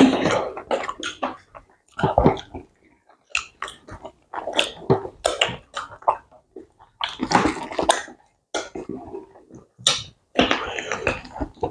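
Mouth sounds of people speed-eating fufu with ogbono soup: irregular chewing, smacking and slurping noises in short bursts with pauses between them.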